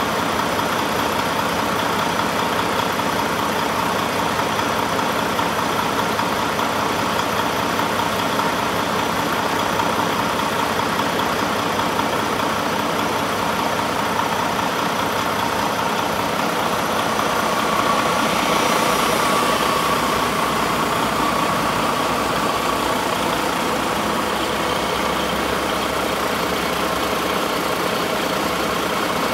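Volvo D13 inline-six diesel engine idling steadily on a test stand. It grows a little louder for a few seconds past the middle.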